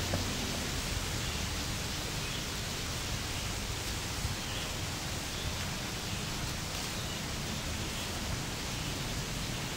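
Steady, even hiss of outdoor background noise, with no distinct sound standing out.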